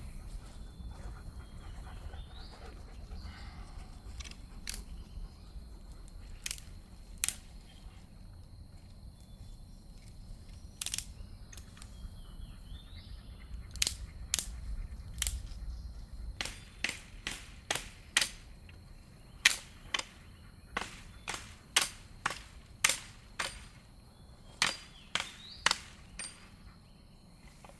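A series of sharp cracks, a few scattered at first, then coming about two a second through the second half, over a low rumble of wind that fades out midway.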